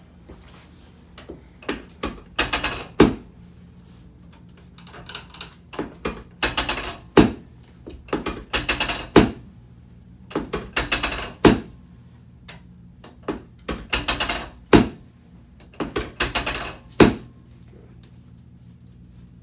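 Chiropractic adjustment: six rounds of brief rustling and clicking, each ending in a loud, sharp crack, spaced about two to four seconds apart.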